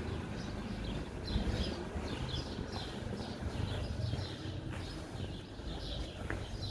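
Small birds chirping over and over in quick, short calls, over a low steady rumble.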